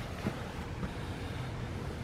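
Steady low background rumble with a few faint ticks.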